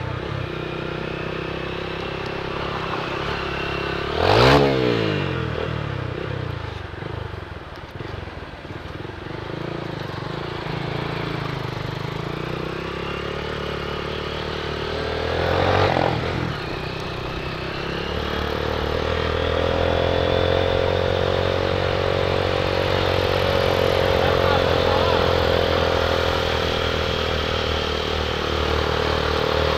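Small street motorcycle running as it is ridden, its engine note rising and falling with the throttle. Twice a vehicle passes close by with a swell and a falling pitch, about four seconds in and again about sixteen seconds in. From about eighteen seconds the engine holds a steadier, stronger note.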